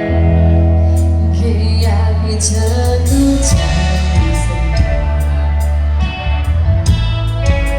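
Live band music with a woman singing over a loud, steady bass and regular drum beats.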